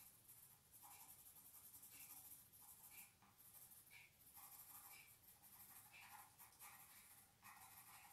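Faint scratching of a crayon drawn across paper in short strokes, about one a second at first and closer together near the end, over a steady high hiss.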